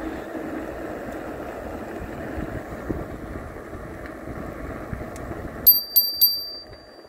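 Steady road and wind noise from a fat-tire electric bike rolling along asphalt, then near the end a bicycle bell rung three times in quick succession, the last ding ringing on briefly.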